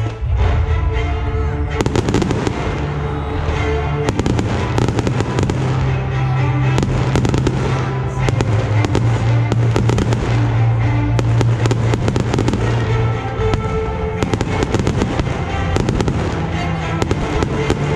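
Fireworks display: shells bursting with dense, rapid crackling pops that start about two seconds in and carry on, over music with held tones.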